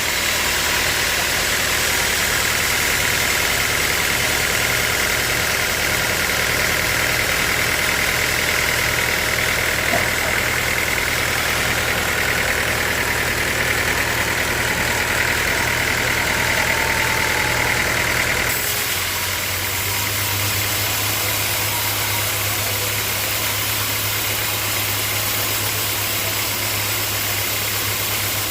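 Engine-driven sawmill running steadily, with a higher whine over the engine that stops suddenly about two-thirds of the way through, leaving the engine running on its own.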